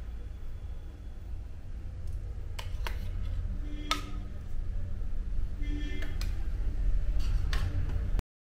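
A few light clicks and taps of a steel cup against a plastic food-processor bowl as ghee is poured in, over a steady low hum. The sound cuts off suddenly near the end.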